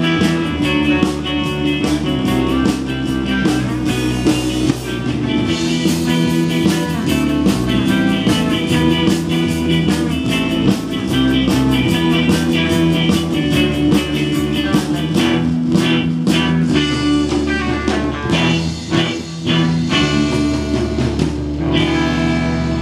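Live rock band playing: electric guitars over bass guitar and a drum kit, with cymbals crashing throughout.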